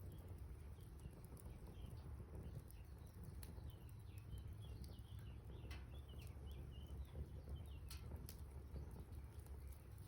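Campfire crackling softly, with a few sharper pops, while small birds chirp faintly in the background.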